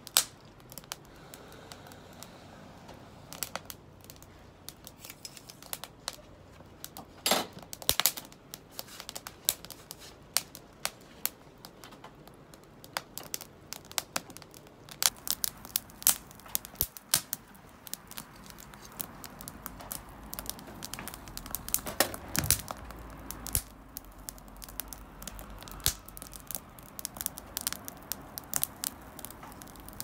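Wood kindling fire crackling and popping, sharp irregular snaps over a low hiss of burning. The pops come more often in the second half as the flames take hold.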